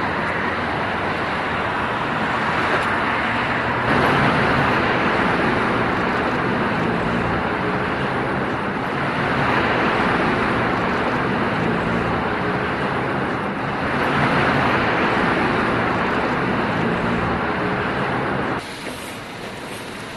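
Strong gusty wind blowing hard, a loud steady rush that swells in surges every few seconds. It cuts off abruptly near the end.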